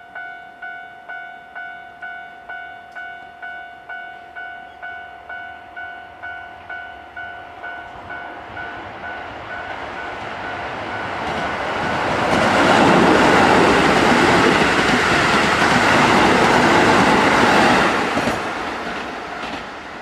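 Level-crossing warning bell dinging about twice a second, fading under the rising noise of a Keisei 3000 series electric train as it approaches. The train passes close by, its wheels clattering on the rails, loudest for about six seconds in the middle, then fades as it moves away.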